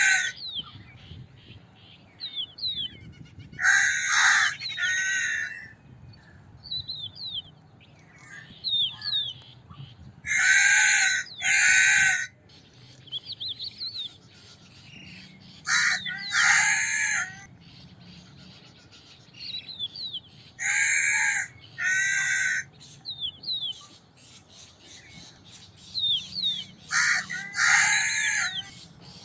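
Crow cawing in pairs of harsh caws, repeated about every five to six seconds, with small birds chirping faintly between the caws.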